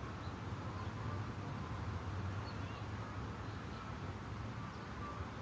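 Steady low hum and background hiss, with a few faint, short, high chirps scattered through it.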